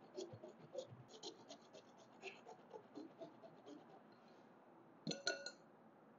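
Lemon being zested on a stainless-steel box grater over a glass bowl: faint, quick rasping strokes, several a second, stopping about four seconds in. Near the end comes a short ringing clink of the metal grater against the glass bowl.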